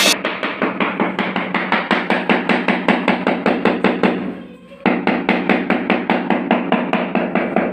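Background music: a fast, even tapping beat over held notes, thinning out briefly about four and a half seconds in before coming back.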